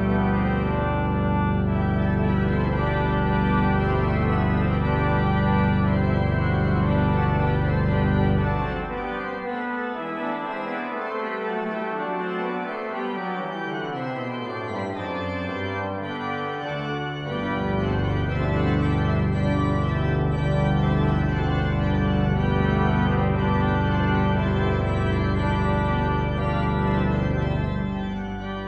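Pipe organ playing sustained full chords over a deep pedal bass. About nine seconds in the bass drops out and a line steps downward through the middle register, and the full sound with pedal bass returns about eighteen seconds in.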